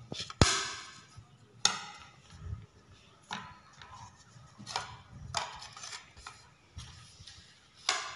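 Kitchenware knocking on a countertop: a sharp click about half a second in, then about six separate knocks and clatters as a plastic plate is laid over a steel tin and the two are turned over together.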